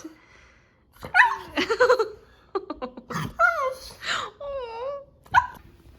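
A dog whining and yipping in several short calls whose pitch wavers up and down.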